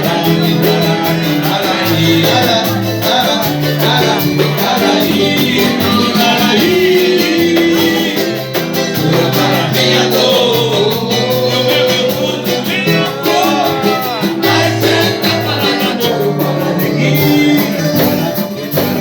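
Band music with a singer: a sung melody over bass and plucked string accompaniment, continuous throughout.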